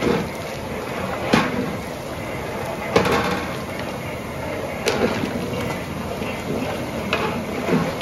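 Long-handled metal ladle stirring thick mutton masala in a large aluminium pot, sloshing through it and knocking against the pot every second or two.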